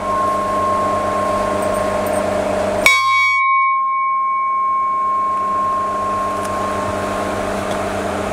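Large brass temple bell (ghanta) ringing with a long sustained tone made of several steady pitches. It is struck again sharply about three seconds in and rings on.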